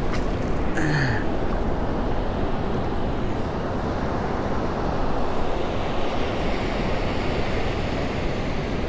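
Steady wash of shallow surf mixed with wind buffeting the microphone. About a second in, one short low sound falls in pitch.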